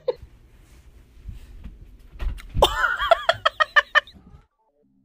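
A person laughing: a quick, high-pitched run of short bursts, about six or seven a second, starting about two and a half seconds in and stopping abruptly after about a second and a half.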